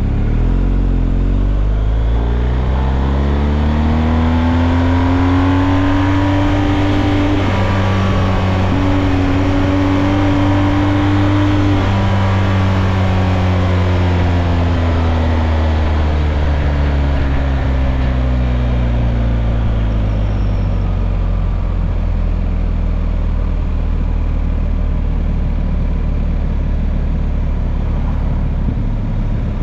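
Motorcycle engine heard from on the bike. The revs climb for several seconds, break off briefly, climb a little further, then fall away slowly and settle into a steady drone.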